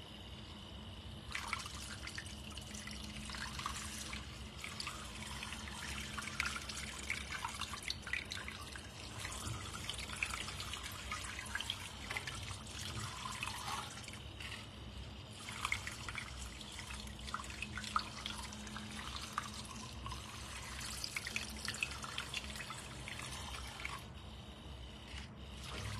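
Handheld battery milk frother whisking a thin spiced hazelnut-milk oat batter in a glass bowl: a steady low motor hum under dense wet splashing and bubbling, which stops briefly twice.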